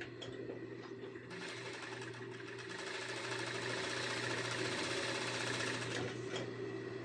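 Industrial sewing machine stitching binding tape onto the edge of stretch swimsuit fabric. It runs steadily from about a second in until about a second before the end, over a steady low hum.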